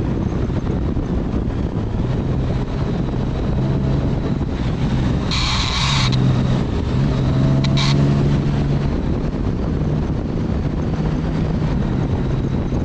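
Motorcycle engine running steadily under wind rush. About five seconds in there is a harsh scraping burst lasting under a second, and a shorter one near eight seconds: hard parts grinding on the asphalt in a lean, throwing sparks.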